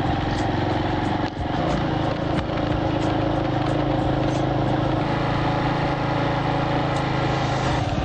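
Motorcycle engine running steadily while riding a dirt road, heard from on board the bike, with a brief dip in level just over a second in.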